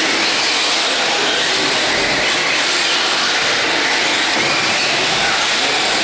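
Radio-controlled cars racing on a dirt track: a loud, steady din of their motors and tyres, with a strong high hiss.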